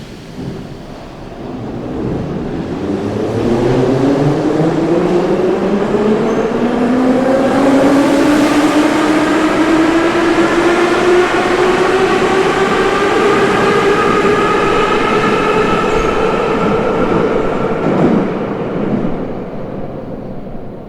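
Metro train accelerating: the electric traction motors give a whine that rises slowly and steadily in pitch for about fifteen seconds over the rumble of the running train. The whine cuts off near the end and the sound dies down.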